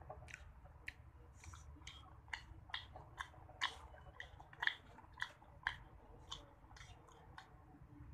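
Close-miked mouth sounds of a child eating ice cream: a string of short wet clicks and smacks at an irregular rate of about two a second, loudest around the middle.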